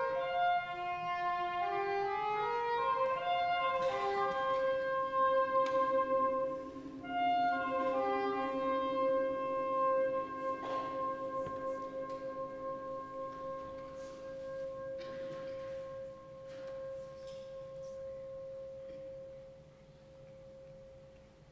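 Fanfare band playing the quiet closing bars of a slow andante: a short stepping melody over a held chord, then one long sustained note that fades away near the end.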